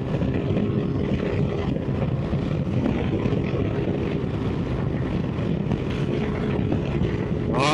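Keeway XDV250 250cc scooter running steadily while cruising down a straight road, with wind noise on the microphone.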